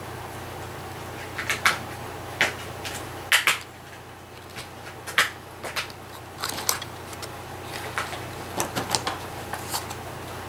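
Irregular light clicks and rustles of paper being handled as hands press a feather boa trim onto the glued edge of a pleated paper medallion, over a faint steady hum.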